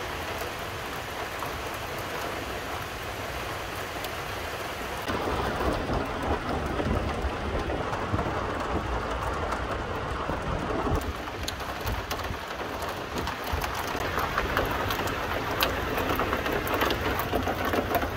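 Heavy rain pouring down in a steady hiss that grows louder about five seconds in, with a few sharper drop hits in the second half.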